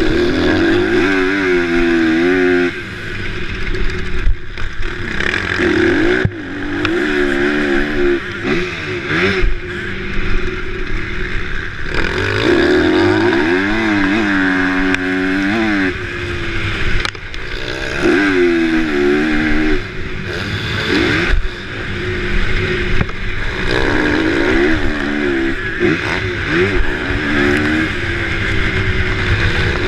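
Motocross bike engine heard from an onboard camera, revving up and dropping back again and again as the rider accelerates and shifts around the track.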